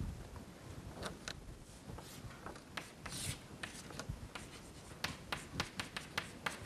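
Chalk writing on a blackboard: scratchy strokes as a line diagram is drawn, with one longer stroke a little after three seconds in and a quick run of short taps and strokes near the end as letters are written.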